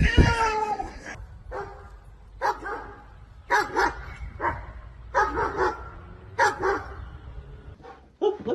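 A dog barking in short, separate barks, roughly one a second.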